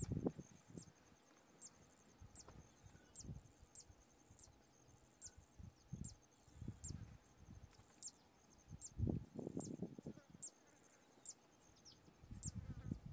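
Insects chirping in the grass: a faint pulsed high trill with short, high, falling chirps about twice a second. Low, irregular thumps and rumbles come and go underneath, the strongest a little after the middle.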